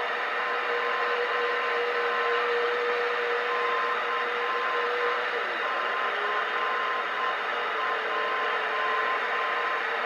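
Radio Shack DX-160 receiver on the longwave band: steady static hiss, with a beacon's Morse code identifier (CCJ) keyed on and off as a high beeping tone. Under it runs a steady lower whistle that dips in pitch briefly about halfway through.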